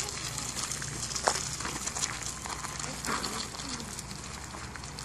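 Steady outdoor background noise with faint, distant voices of people.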